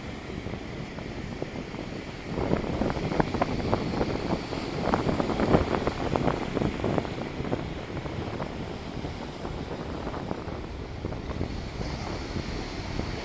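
Sea waves on the shore mixed with wind buffeting the microphone, growing louder and rougher about two seconds in before easing back to a steady wash.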